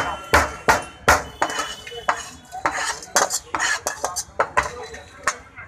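Metal utensils clanking against cookware during food preparation: a run of sharp, irregular knocks, several a second.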